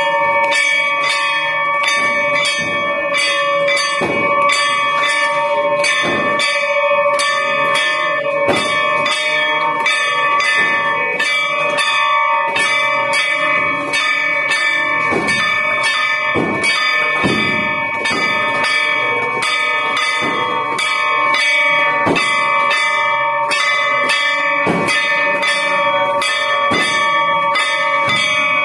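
Brass temple bells and a hand-held gong rung rapidly and without pause for an aarti: a dense, continuous clanging of overlapping metallic strikes over steady ringing tones.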